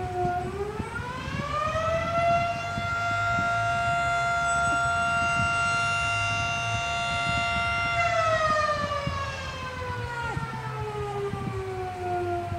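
Fire siren wailing: its pitch rises over about two seconds, holds steady for about six seconds, then slowly falls.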